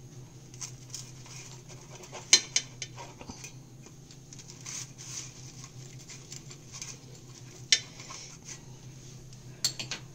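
Wheel pizza cutter rolling through a paratha and scraping against a stainless steel plate, with three sharp metallic clinks: about two seconds in, near eight seconds, and a quick double clink near the end.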